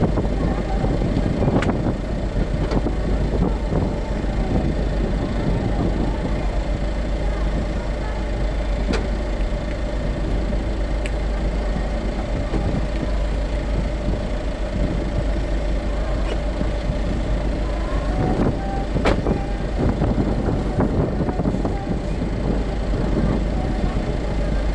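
Abarth 124 Spider's 1.4-litre turbocharged four-cylinder engine idling steadily while the car stands still, with a few sharp clicks now and then.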